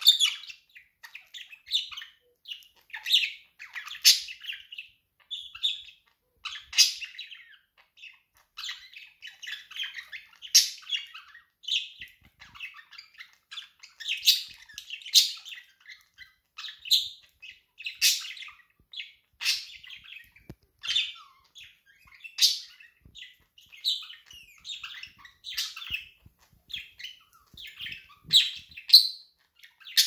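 Pet budgerigars warbling and chattering without pause, a stream of short, sharp chirps and clicks with a louder call every second or two.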